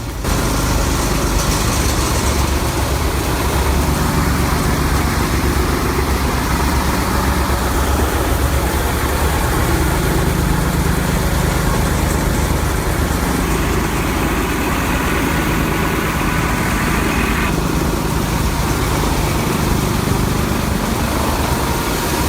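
Heavy shredding machine running steadily, a loud continuous mechanical din with a deep rumble that lessens partway through.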